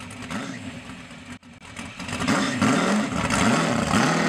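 Shelby GT350 Mustang's V8 engine pulling away on the road, quieter at first, then louder, its note rising and falling through a few revs and climbing again near the end.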